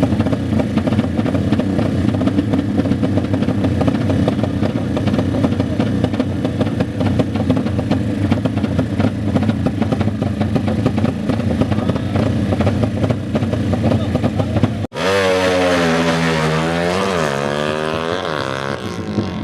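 Motorcycle engines running steadily in a noisy background; after an abrupt cut about fifteen seconds in, a single racing motorcycle's engine revs up and down several times.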